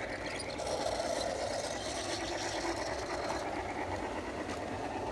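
Large-scale Bachmann Shay model locomotive running steadily along the track on its metal trucks: a continuous mechanical whir of motor, gears and wheels on the rails.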